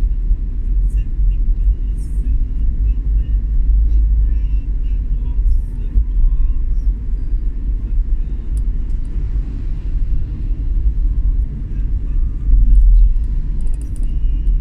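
Steady low rumble of a vehicle on the move, the drone of engine and road noise, with a few faint clicks and chirps above it.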